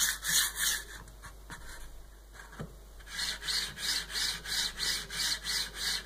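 Hiwin MGN9 linear-rail carriage slid back and forth by hand along its steel rail: a rhythmic rolling hiss of its ball bearings, about three strokes a second, fainter for a couple of seconds in the middle. The carriage runs dry, not yet greased.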